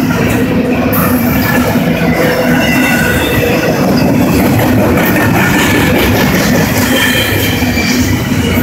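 Double-stack intermodal well cars rolling past at speed: the steady noise of steel wheels on the rails, with faint high squealing tones coming and going.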